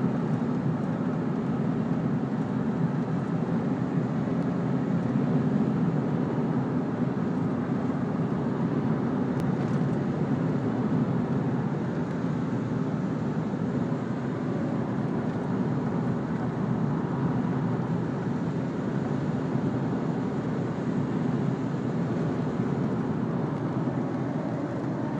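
A car driving at a steady speed: a constant rumble of road and engine noise.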